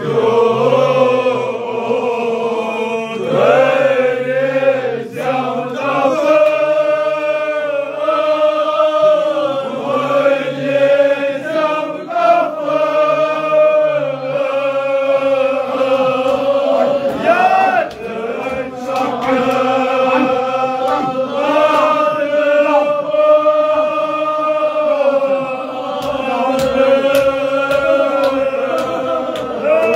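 Men's voices chanting a Shia mourning lament together in long held lines, with a run of quick sharp slaps in the last few seconds.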